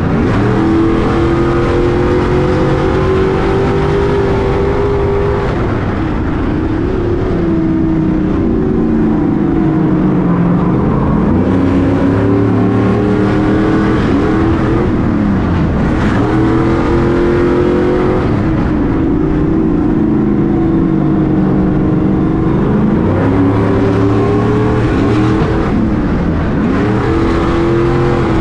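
Stadium Super Truck's V8 engine racing flat out, its pitch climbing as it accelerates and dropping back again and again as the driver lifts and gets back on the throttle.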